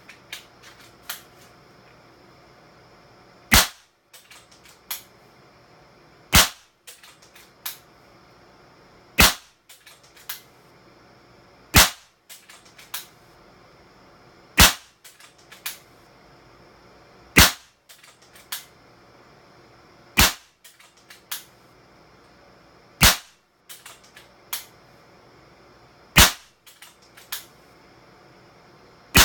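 Kral Puncher Mega .25 calibre PCP air rifle firing a string of ten shots, one about every three seconds, with lighter clicks between shots.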